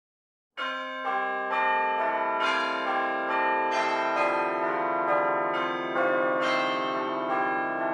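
A short jingle of ringing bells or chimes: a run of bell strikes about every half second, starting after a brief silence and piling up into a sustained, overlapping ring.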